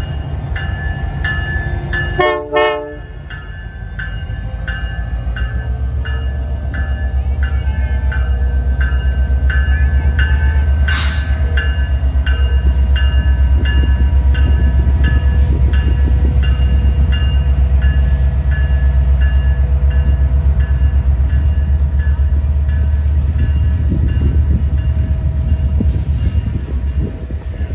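A diesel locomotive sounds a brief horn blast about two seconds in, while a bell rings about twice a second and fades away. The locomotive's engine then builds into a deep, loud rumble as the train pulls out.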